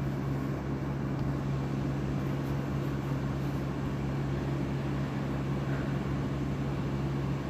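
Steady low hum over a constant background hiss, with no ticks or changes.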